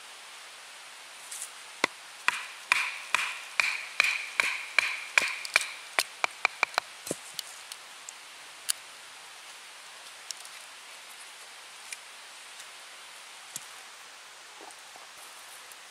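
A knife being batoned down through a block of very hard wood to split off a thin slat: a quick series of sharp wooden knocks, some ringing with a clear tone, quickening toward the end, then a few single clicks.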